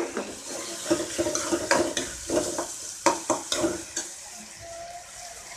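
Steel spoon scraping and clinking against a metal kadai as tomatoes and onions are stirred while they fry in oil, over a steady sizzle. The stirring strokes come in a quick run between about one and four seconds in.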